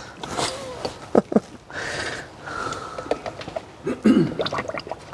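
Turkey baster drawing old brake fluid out of a master-cylinder reservoir and emptying it through a plastic funnel into a bottle: short hissing, sucking noises of air and fluid, with a few sharp plastic clicks and knocks.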